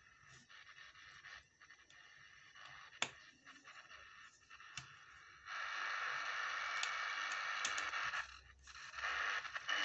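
Portable FM radio receiver's speaker giving a steady static hiss (white noise) of an untuned set, which comes in about halfway through, drops out briefly near the end and returns. The hiss is the sign that the repaired receiver is working and only needs tuning to a station. Before it, faint scratching and a single click of the set being handled.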